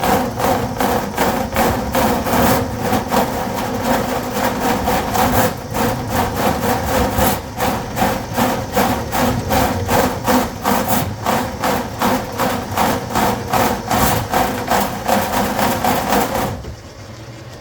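Electric drain-cleaning cable machine running, its motor humming steadily while the spinning cable knocks rhythmically, about three to four beats a second, as it works through a grease blockage in a kitchen sink drain line. The machine cuts off suddenly near the end.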